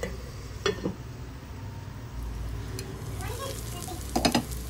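Chicken shallow-frying in oil in a cast-iron skillet, muffled under a glass lid: a faint steady sizzle over a low hum, with a few light clicks about a second in and a brief clatter about four seconds in.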